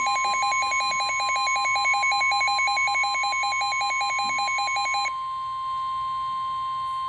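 NOAA weather radio alert: the steady 1050 Hz warning alarm tone with a rapid pulsing beep from the Midland WR100 radio over it. The beeping stops about five seconds in while the steady tone goes on. It signals that a new warning is about to be broadcast.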